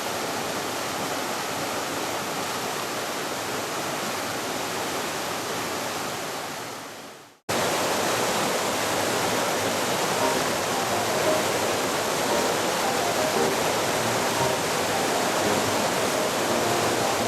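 Mountain stream rushing over rocks, a steady hiss of water. It fades out about seven seconds in, then comes back suddenly a little louder, with faint short tones in the second half.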